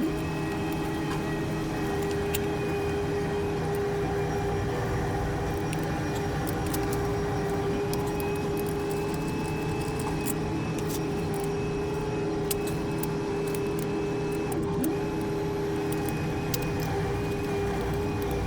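A steady mechanical hum, several fixed pitches held throughout, with scattered light clicks and ticks of hand tools working on metal bolts.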